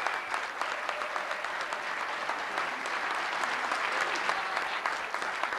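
Audience applauding steadily, many overlapping hand claps.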